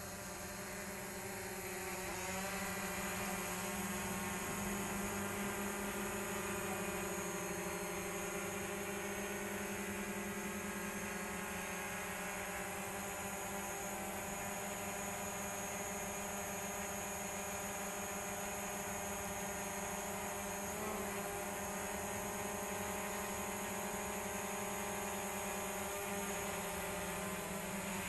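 DJI Mavic Pro quadcopter's propellers and motors buzzing steadily, a hum with many overtones that shifts slightly in pitch a few times as the drone adjusts its flight.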